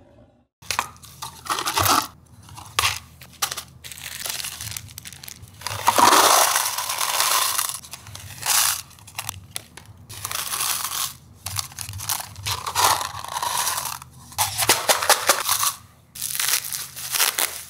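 Small plastic zip bags crinkling as they are handled and emptied, with small steel spring washers and nuts rattling into paper cups. Underneath is a low steady hum.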